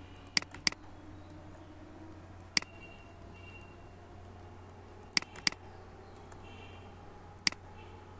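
Computer mouse button clicks as pen-tool anchor points are placed: about six sharp clicks, two of them in quick pairs, over a steady low hum.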